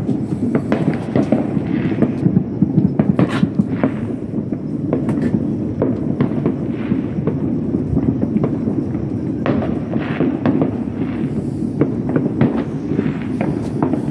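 Fireworks going off: many sharp cracks and bangs scattered over a continuous low rumble.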